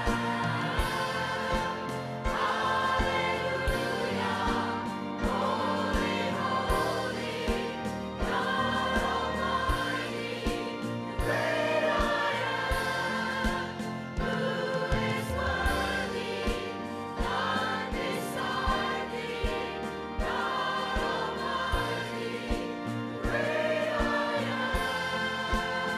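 Mixed church choir of men and women singing a gospel worship song in full voice, over instrumental accompaniment with a steady beat.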